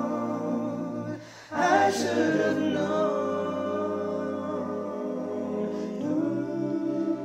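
Multitrack a cappella singing: one man's voice layered into many parts, holding sustained chords without words. The chord breaks off briefly a little over a second in, comes back in, and moves to a new chord near the end.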